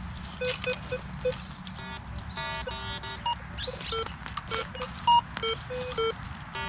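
Minelab metal detector giving a string of short, irregular target beeps of different pitches as its coil is swept over the ground, mostly low tones with some higher ones and a longer multi-toned beep about two seconds in.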